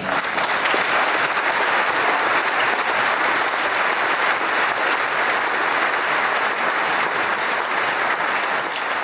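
Audience applauding: a large crowd clapping steadily, easing off slightly near the end.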